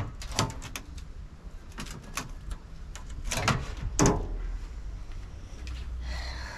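A car fridge slide on new heavy-duty ball-bearing drawer slides being pushed in and pulled out by hand. Metal clunks and clicks come through the first four seconds, then a softer hiss near the end.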